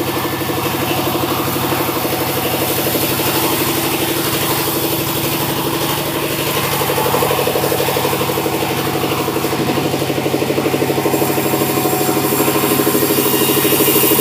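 Sawmill machinery running steadily: an engine with a fast, even pulse and a dense hum, with a high hiss over it.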